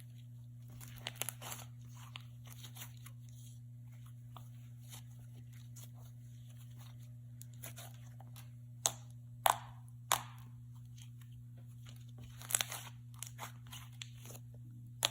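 Clicky slime being stretched and squeezed by hand, giving scattered clicks and pops, with a few louder pops past the middle and a crackly cluster near the end.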